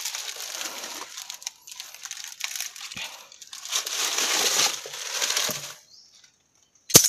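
Rustling and scraping of movement over dry leaves and rock, in long noisy stretches, then a short pause and a single sharp metallic click near the end as a stick prods a steel rat snap trap.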